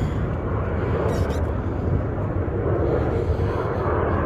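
Steady low rumble of a plane taking off.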